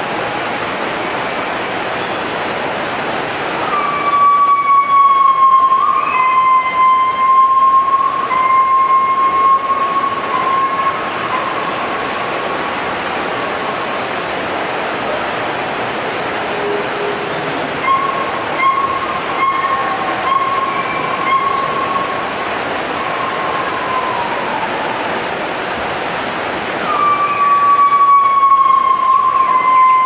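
A rainforest insect's high, steady whistling call, held for several seconds at a time and given three times, each starting with a slight downward slide, over a steady hiss of forest background.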